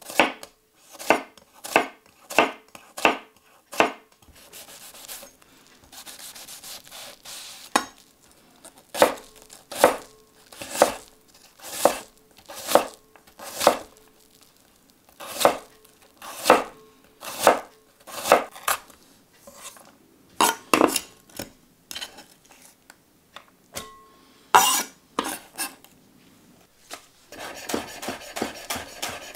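Chef's knife cutting a red onion on a wooden chopping board. Each cut ends in a sharp knock of the blade on the wood, about one to two a second, with a quieter pause of a few seconds after about four seconds. Near the end the strokes turn fast as the knife chops coriander.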